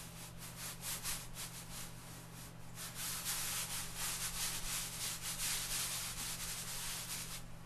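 Lecturer's chalk stroked quickly back and forth on bogus paper: a run of scratchy rubbing strokes that grows denser and louder about three seconds in.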